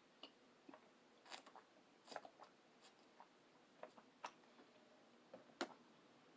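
Someone chewing food close to the microphone: faint, irregular wet mouth clicks and smacks, with one sharper smack near the end.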